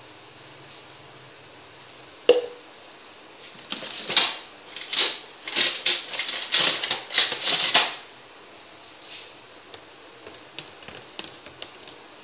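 Kitchen utensil clatter in a plastic jug: one sharp knock about two seconds in, then about four seconds of quick, irregular scraping and clattering, then a few light clicks near the end.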